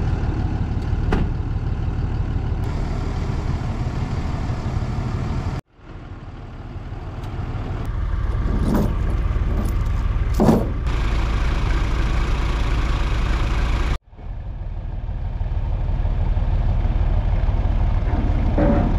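Vehicle engines running steadily: a pickup truck and a backhoe lifting rusty steel pipe off a flatbed trailer. Two sharp metallic rattles of a load chain are heard about halfway through. The sound cuts off abruptly twice.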